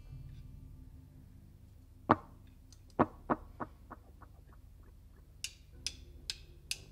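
Low amp hum fading out, a single drum knock, then a run of taps that come quicker and fainter like a drumstick bouncing on a drumhead. Near the end, four evenly spaced crisp stick clicks: a drummer's count-in.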